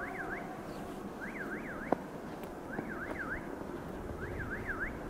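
Electronic warning signal warbling, a quick rising-and-falling sweep done twice and repeated about every second and a half, over a steady low rumble, with a sharp click about two seconds in.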